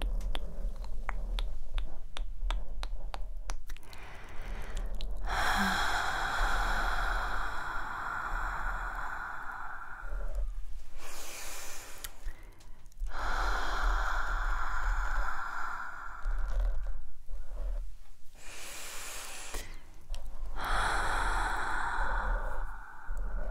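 Long, breathy sighs blown close into an ASMR microphone, three of them, each a few seconds long. Between them come short, scratchy rustles of hands at the microphones, and there is a run of light clicks in the first few seconds.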